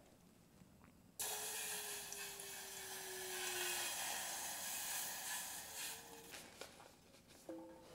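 Water poured from a plastic bottle into a small metal camp pot: a steady splashing hiss that starts suddenly about a second in and tails off after about six seconds.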